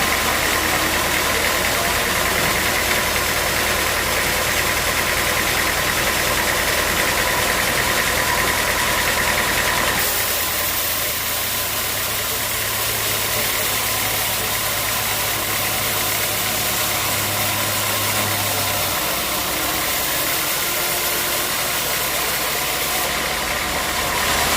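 Sawmill machinery running steadily, with an engine-like hum. The sound changes abruptly about ten seconds in and then runs on slightly quieter.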